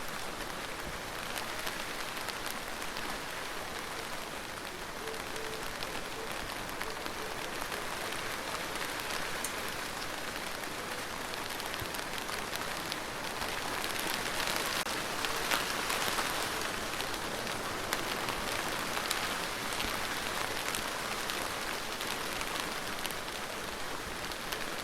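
Steady rain falling, with fine drops pattering on a hard surface. It swells heavier a little past the middle, then eases back.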